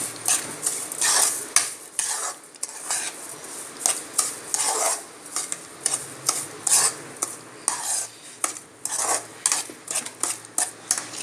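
A spoon stirring wheat semolina kesari in a kadai, scraping and knocking against the pan in quick, irregular strokes as sugar is mixed in.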